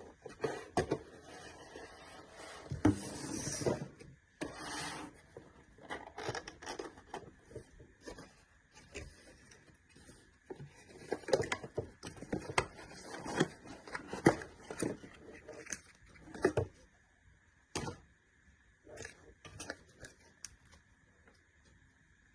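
Packaging and product parts being handled during an unboxing: irregular knocks, clicks and rubbing as the box, case and pieces are opened, lifted and set down, loudest about three seconds in.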